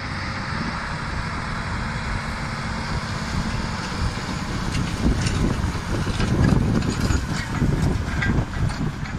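John Deere 9620RX quad-track tractor's diesel engine working under load as it pulls a Horsch Joker 12RT disc harrow through the soil, growing louder about five seconds in as it passes close. Short clicks and knocks from the harrow sound over it in the second half.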